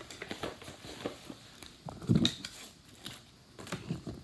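Small items being packed into a fabric bag by hand: irregular rustling and light clicks of bottles and packets against the cloth, with one louder dull thump about two seconds in.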